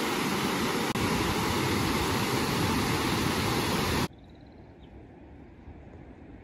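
Water rushing over a broad, rocky waterfall cascade: a loud, steady noise. It cuts off abruptly about four seconds in, leaving a much quieter outdoor background.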